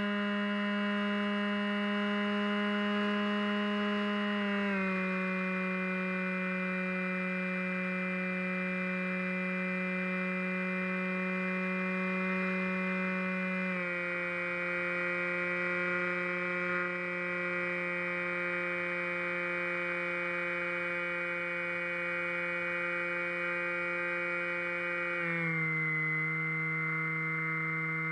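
Background music: slow ambient synthesizer chords, each held for several seconds and changing three times.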